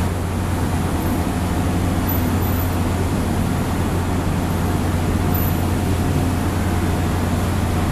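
A steady low engine drone with street traffic noise, running unbroken with no sudden events.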